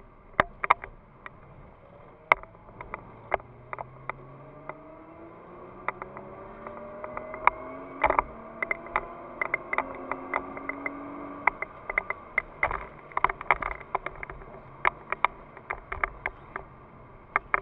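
Nissan GT-R R35's twin-turbo V6 heard from inside the cabin, accelerating hard with rising pitch and gear changes about five and eight seconds in, then easing off after about twelve seconds. Frequent sharp clicks run throughout.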